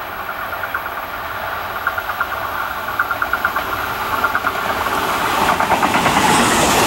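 Tobu 350 series electric train approaching and passing close by, its wheels clattering in quick groups of clicks over the rail joints. It grows steadily louder as the cars draw level near the end.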